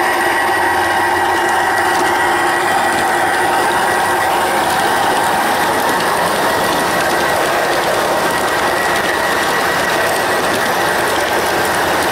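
G-scale model train running along its track, heard from a camera riding on the train: a steady mechanical rattle of wheels and running gear with a steady high whine.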